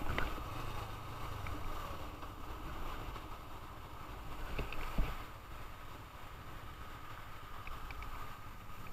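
Motorcycle on the move, mostly wind rush and road noise over the engine's low rumble, easing off in level as the bike slows. A single short knock about five seconds in.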